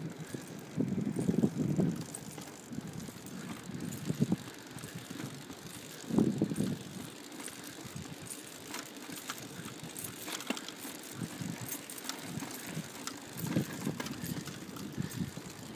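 Mini BMX bike rolling along a road, with a steady tyre and wind hiss. Low rumbles swell up about a second in, around six seconds and near the end, and light clicks and rattles come and go.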